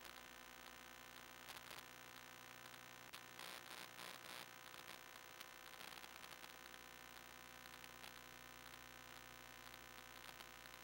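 Near silence: a faint steady electrical hum and hiss, with a few faint crackles about three and a half to four and a half seconds in.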